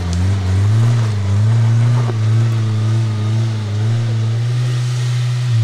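A lifted Suzuki 4x4's engine pulls steadily under load as it climbs a steep dirt bank. Its note rises slightly in the first second, then holds at steady revs.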